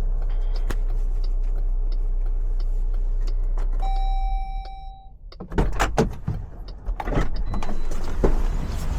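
Inside a car: faint ticks about one and a half times a second, like a turn signal, over a steady low hum. Then comes a single electronic chime lasting about a second, followed by a run of irregular clunks and rattles.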